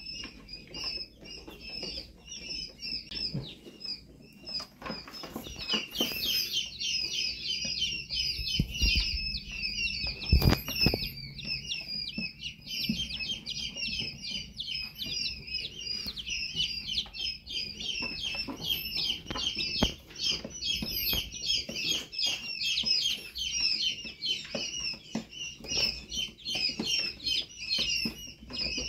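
A brood of newly hatched chicken chicks peeping constantly, many high, short peeps overlapping into a steady chorus that grows denser after a few seconds. A few dull thumps come around ten seconds in.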